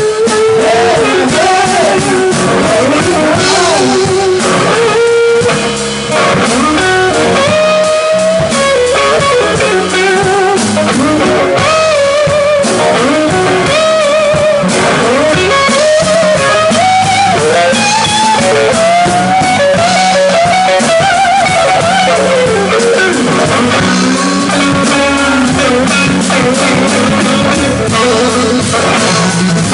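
Live blues-rock trio playing loud: a lead electric guitar line of bent, wavering notes over drum kit and bass guitar, with a brief drop in level about six seconds in.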